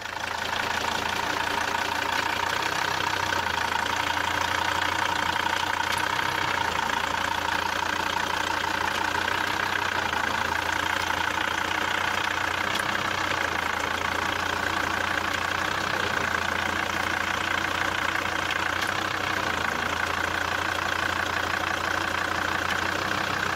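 Volvo D5 five-cylinder turbodiesel idling steadily, heard from beneath the car beside the transmission torque rod.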